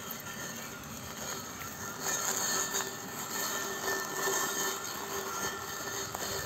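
Tech Line robotic lawn mower running over grass: a steady electric motor whine from its drive and blade motors, getting louder about two seconds in.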